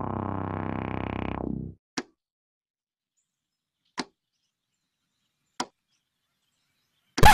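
Synthesizer intro music that cuts off abruptly just under two seconds in. Then come three short, sharp edited sound effects about two seconds apart, and near the end a louder sweep that falls in pitch.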